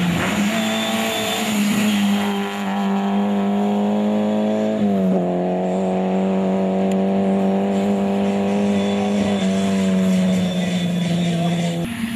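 Rally car engine running hard at high, steady revs on a dirt stage, with a brief dip in pitch about five seconds in.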